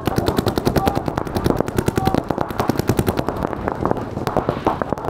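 Paintball markers firing in a continuous stream of sharp pops, many shots a second without a break.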